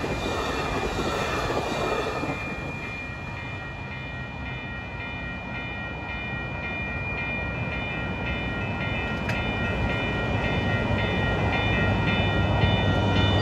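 Bilevel passenger train rumbling past and fading into the distance just after its horn, with several steady high tones ringing above the rumble. A low hum swells again near the end.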